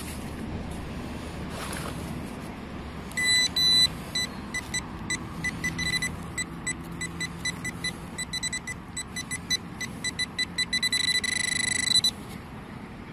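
Metal detecting pinpointer beeping a single high note, in short pulses from about three seconds in that quicken into a steady tone for about a second before cutting off. The pulses and the steady tone are the sign that the probe is closing in on a metal target in the dug hole. Soft scraping of a trowel in the soil comes before the beeping.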